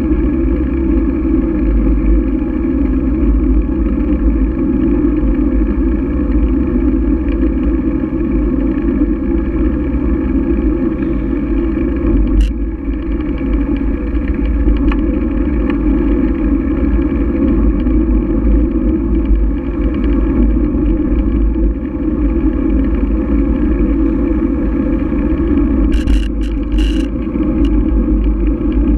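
Steady wind and tyre rumble from a camera mounted low on a bicycle rolling over asphalt, with a sharp click about twelve seconds in and a few rattling clicks near the end.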